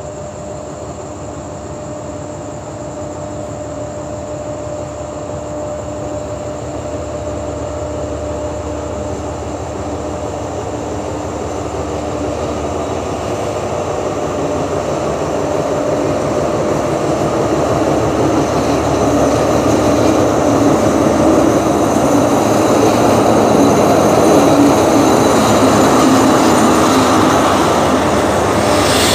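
Alsthom diesel-electric locomotive approaching slowly and drawing into the station with its train, the engine and wheel noise growing steadily louder until it passes close by near the end. A steady hum runs under the rumble.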